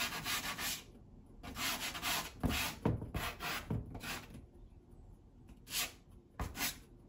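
Hard pastel stick dragged and rubbed across sanded pastel paper: a run of short, scratchy strokes of uneven length with brief pauses between them.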